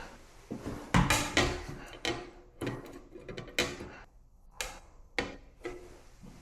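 Work handling noise: about a dozen separate knocks, clicks and clatters of tools and parts being picked up and set down, with short quiet gaps between them.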